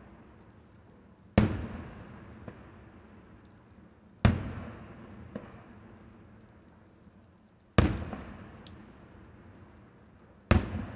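Aerial fireworks bursting overhead: four loud bangs about three seconds apart, each followed by an echo that fades over a couple of seconds, with faint crackles in between.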